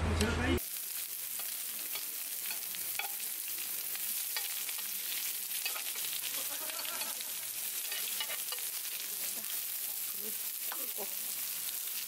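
Pork belly and water parsley sizzling on a marble-coated griddle pan over a portable stove: a steady frying hiss dotted with small pops and crackles. It cuts in abruptly about half a second in.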